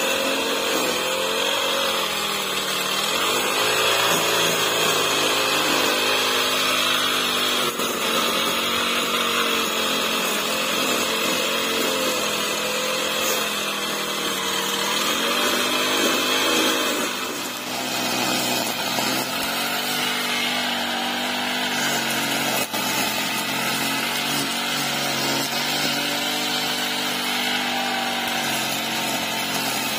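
Petrol brush cutter running while cutting grass, its engine speed rising and falling every few seconds. A little past halfway it eases off and runs on at a lower, steadier speed.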